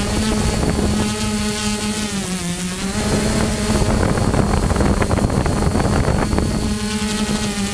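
Hexacopter's electric motors and propellers buzzing steadily, dipping briefly in pitch about two seconds in. From about three to nearly seven seconds in, a rushing, wind-like noise mostly covers the buzz, which then returns.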